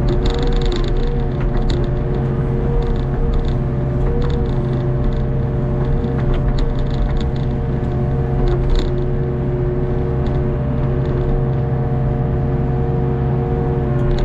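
Hitachi ZX48U mini excavator's diesel engine running steadily under digging load, with hydraulic whine that shifts slightly in pitch as the boom and bucket work. A few short clicks and scrapes come from the bucket working the wet mud.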